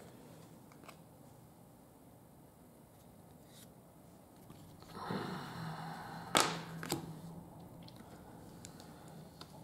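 Trading cards being handled: a brief rustling scrape about halfway through, with two sharp clicks close together.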